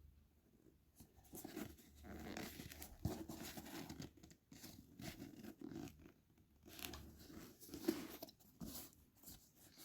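Faint, irregular rustling and scraping with a few light taps: a sneaker being handled and turned over.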